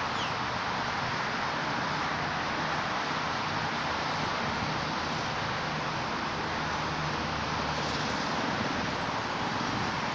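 Steady outdoor background noise: an even, hiss-like rush that holds at one level, with no distinct sounds standing out.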